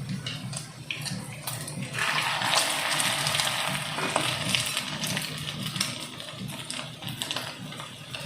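Veg cutlets, dipped in egg and breadcrumbed, sizzling in hot oil. The sizzle starts suddenly about two seconds in as a cutlet goes into the pan, is loudest for a moment, then settles into a softer, steady sizzle with small pops.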